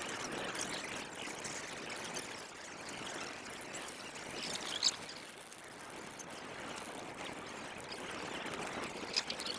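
Large driftwood bonfire burning: a steady rushing crackle with a few sharp pops, the loudest about five seconds in.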